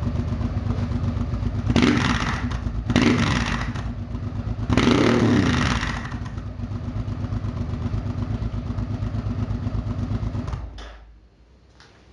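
Honda XRV750 Africa Twin's V-twin engine idling through an aftermarket exhaust with all its dB-killer baffles removed, blipped three times, the third rev longer, rising and falling. The engine stops near the end.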